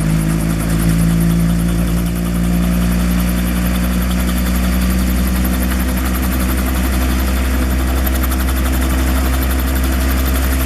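Small private helicopter running on the ground, its engine and rotor at a steady idle.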